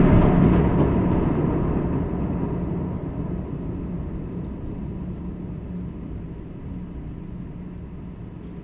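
Thunder in a heavy rainstorm: a loud crackling clap at the start, then a long low rumble that slowly fades away.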